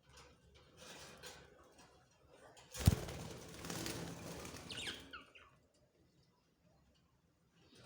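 Budgies fluttering and chirping, with a sharp knock about three seconds in.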